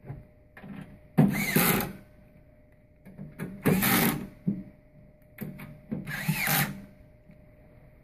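Cordless electric screwdriver driving the back screws into a stainless-steel machine cover, in three short runs of under a second each, the motor whine rising and falling in each run.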